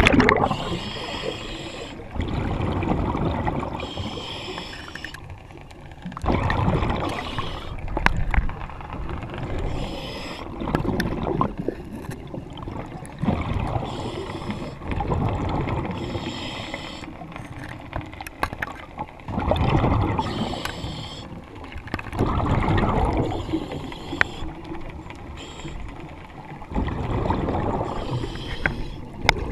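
A diver breathing underwater from a hookah regulator fed by a surface air compressor: a rush of exhaled bubbles about every three to four seconds, with quieter stretches between breaths.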